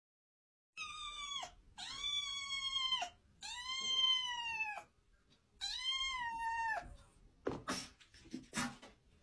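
Black-and-white kitten meowing four times, long high-pitched mews that drop in pitch at their ends. A few short, sharp noises follow near the end.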